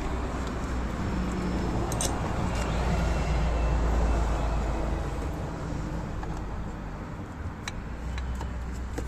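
Steady low rumble of a motor vehicle running, swelling and easing a little, with a few sharp clicks and taps.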